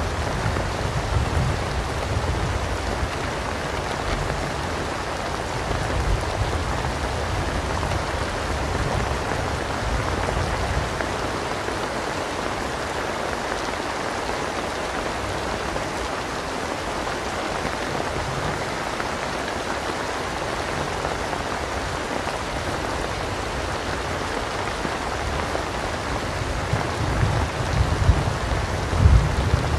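Steady heavy rain, a dense even hiss of drops. A low rumble of thunder dies away in the first couple of seconds, and another rolls in near the end.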